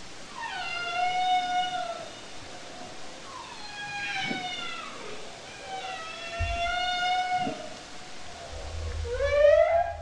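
Humpback whale calls recorded underwater: four drawn-out, pitched moans. The first three slide down in pitch and then hold steady, and the last rises in pitch near the end. A low rumble lies underneath in the second half.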